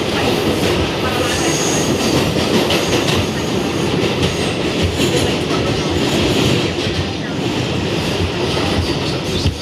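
Steady loud running noise heard from inside a Kawasaki R211A New York subway car as it runs through the tunnel, wheels on the rails, with a brief high wheel squeal about one and a half seconds in.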